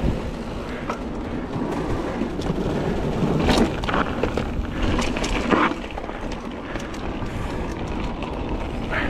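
Mountain bike rolling fast over dirt singletrack and gravel: tyre noise, wind rumble on the microphone, and scattered clicks and knocks from the bike over bumps, with louder crunching surges about three and a half and five and a half seconds in.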